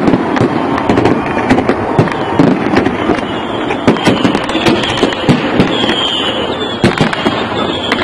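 Aerial fireworks display: a dense barrage of shell bursts, many sharp bangs and crackles in quick succession.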